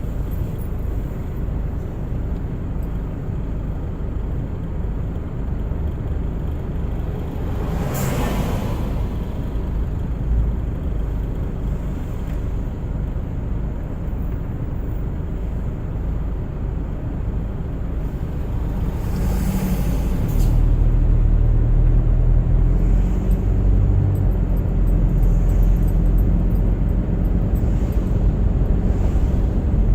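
A car driving on a winter road, heard from inside the cabin: a steady low rumble of engine and tyres, with a brief swish about eight seconds in and another near twenty seconds. From about twenty seconds the rumble grows louder, with a steady low hum.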